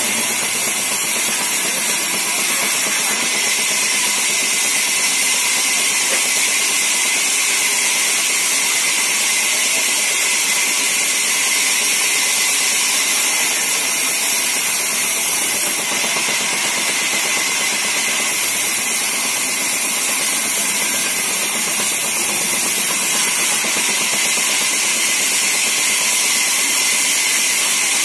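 Vertical band saw running, its blade ripping lengthwise through a heavy wooden beam as it is fed along the table. The sound is a steady, high-pitched rushing noise that does not let up.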